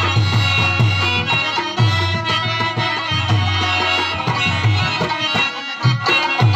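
Instrumental Pashto folk music: a harmonium plays a sustained melody over a tabla beat, the low drum strokes bending in pitch.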